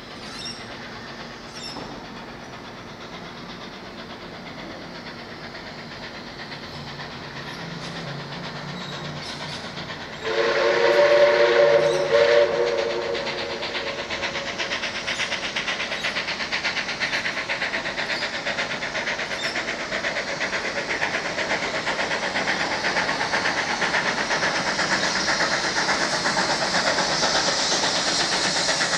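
Steam locomotive 5917, a 59 class 2-8-2, approaching under power: its whistle sounds one blast of several notes for about two seconds, about ten seconds in. After that its rapid exhaust beats and the rumble of the wheels on the rails grow steadily louder as it nears.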